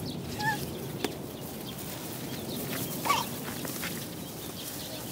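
Outdoor park ambience: a steady background hiss with a short high chirp about half a second in, a sharp click about a second in, and a brief wavering high call about three seconds in.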